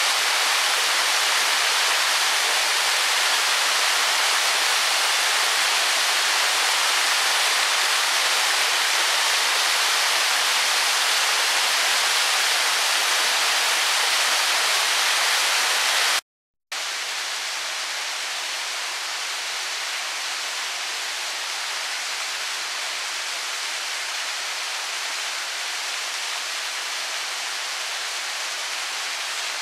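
Waterfall with a 15 m drop, water falling into its pool as a steady, even rush. About halfway through it cuts out for a moment and then comes back somewhat quieter.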